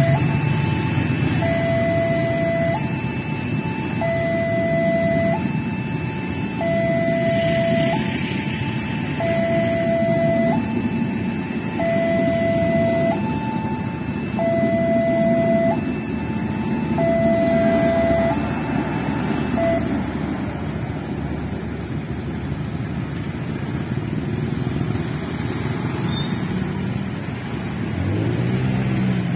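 Railway level-crossing warning alarm sounding an alternating two-tone signal, each tone lasting a little over a second, over the steady rumble of a passing train and idling motorcycles. The alarm stops about two-thirds of the way through, as the crossing clears, and near the end motorcycle engines rev up as traffic moves off.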